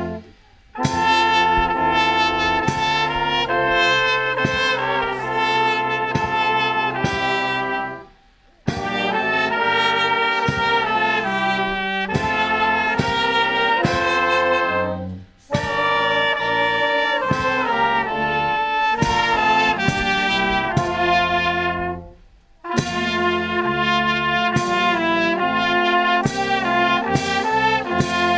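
Brass band playing a tune in phrases of about seven seconds, with short breaks between them near the start and about 8, 15 and 22 seconds in.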